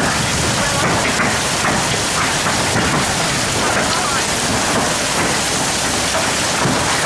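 Hailstorm: hail and heavy rain pouring down onto lawn and trees in a dense, steady hiss.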